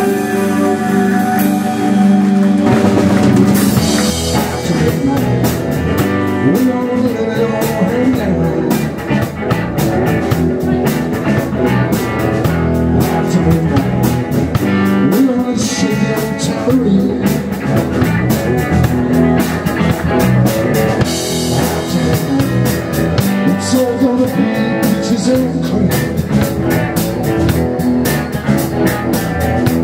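Live rock 'n' roll band playing: electric guitars, bass and drum kit, with a man singing into the microphone.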